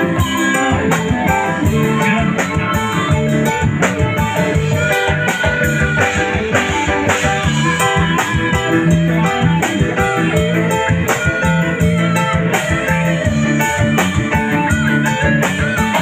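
Live band playing amplified music at a stage sound check, led by guitar with a drum kit keeping a steady beat.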